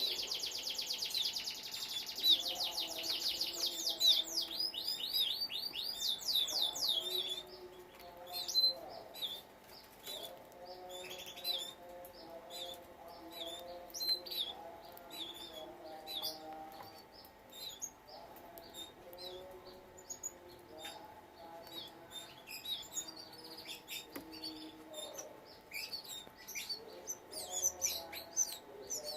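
Canaries singing: a fast, rolling high trill for the first several seconds, then scattered chirps and short calls.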